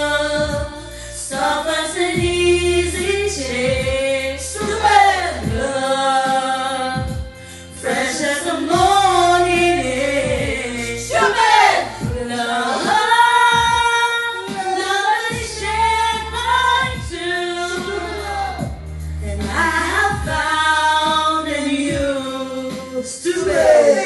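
Two women singing through handheld microphones over a karaoke backing track, holding long, wavering notes.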